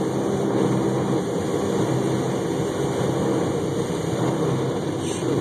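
Automatic car wash heard from inside the car: cloth strips and spinning brushes scrubbing across the windshield, with water spray and a steady machinery hum.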